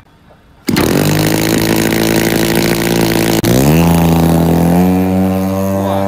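Large RC aerobatic airplane's engine and propeller running at a steady pitch, cutting in abruptly just under a second in. About halfway through the pitch glides up as the throttle is opened, and near the end it rises again.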